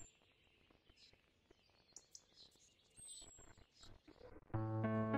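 Mostly quiet, with faint small clicks and a few short, high, falling bird chirps. Background music with steady held notes comes in near the end and is the loudest sound.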